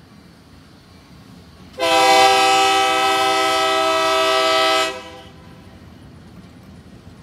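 Union Pacific locomotive air horn sounding one long blast of about three seconds, a chord of several notes, starting about two seconds in, over the steady rumble of the train rolling past.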